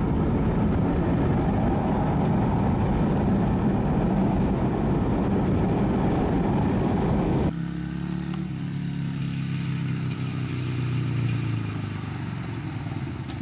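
Steady road noise inside a car on the highway, cutting off abruptly about seven and a half seconds in. Then a 1999 Yamaha Virago 250's air-cooled V-twin idles, freshly started.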